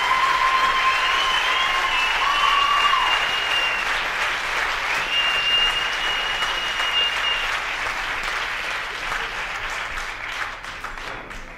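Concert audience applauding at the end of a song, with two long, high whistles in the first half; the applause fades away near the end.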